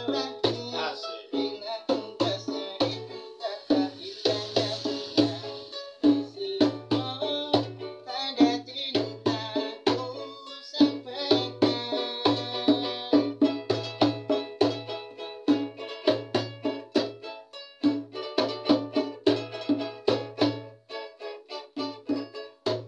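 Ukulele strummed in chords over a goblet-shaped hand drum beating a steady low rhythm: the two are playing live together, with no singing.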